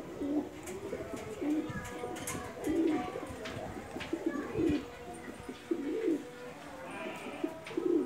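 Domestic pigeons cooing, short low coos repeating about once a second, with a few light knocks among them.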